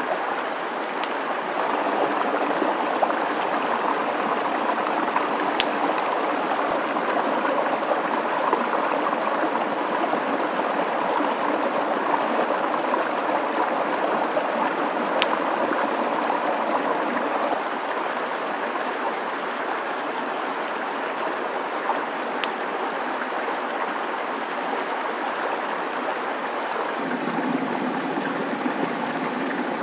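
A stream running steadily over rocks, a continuous rushing that shifts slightly in tone a couple of times. A few single sharp clicks sound over it.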